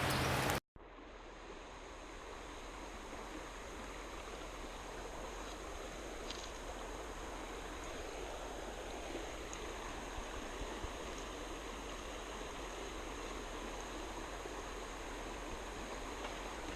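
Steady rushing of a flowing trout stream, an even wash of water noise that fades in just after a sudden cut about half a second in.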